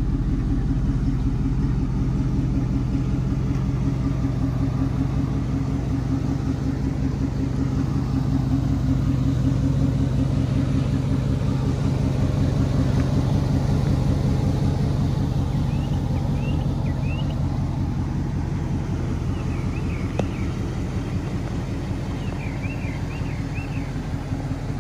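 1959 Cadillac Series 62's 390 cubic-inch V8 idling steadily.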